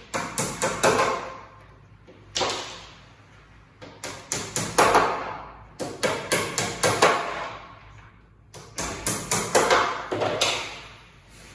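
Hammering on flat-pack furniture parts during assembly of an IKEA Malm bed: several quick runs of four or five sharp strikes, each run fading away, with pauses of a second or two between them.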